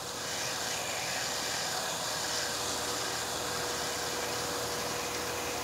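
Gas burner flame of a neon glass-bending bench hissing steadily while glass tubing is heated for bending, with a faint steady tone underneath.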